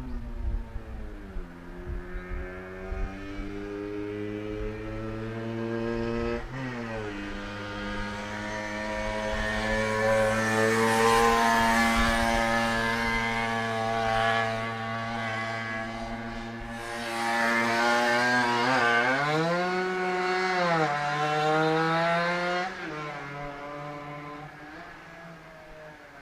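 Yamaha TZM two-stroke single-cylinder racing motorcycle with a DGW expansion-chamber exhaust, running on a circuit. The engine note holds steady and grows louder, dips sharply in pitch about six seconds in, and rises and falls again late on before fading away near the end.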